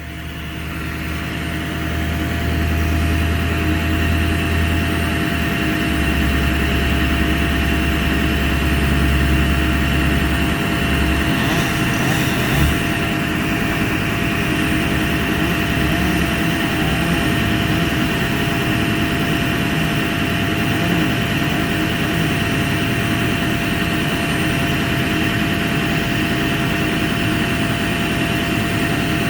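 An engine-driven machine running steadily; it builds up over the first two seconds, then holds an even drone.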